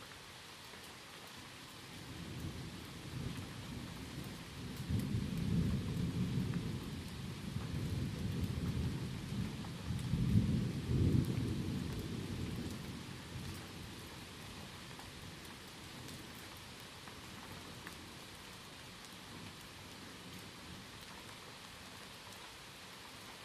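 Rain falling steadily, with a long roll of thunder that builds about two seconds in, swells twice and dies away about ten seconds later.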